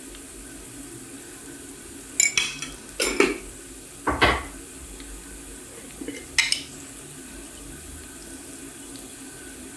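A few separate clinks and knocks of kitchenware, spice containers and utensils being handled at the stove; the loudest is a dull knock about four seconds in.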